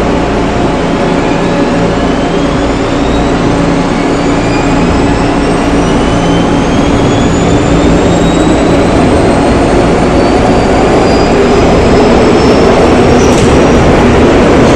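Seoul Metro Line 3 3000-series electric train with GEC chopper control, heard on board while accelerating: several whining tones rise steadily in pitch over a loud rumble of running noise that grows louder as the train picks up speed.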